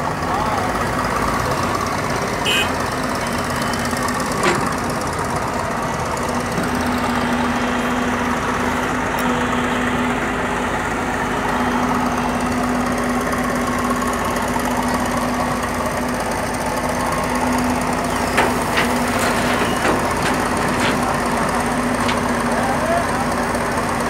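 Heavy construction machinery's engine running steadily with a constant low drone, with a few short knocks a few seconds in and several more later on.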